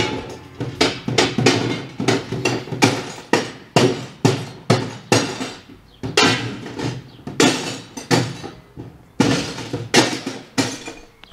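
Repeated sharp knocks on a hollow plastic kayak hull, about two to three a second at an uneven pace, as a camera mount is pressed and tapped into place on its side.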